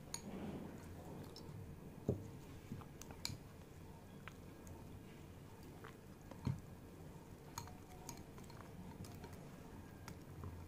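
Small wire whisk stirring thick cornflour-and-flour batter in a glass bowl: faint wet squishing with light clicks of the wires against the glass, and a couple of soft knocks.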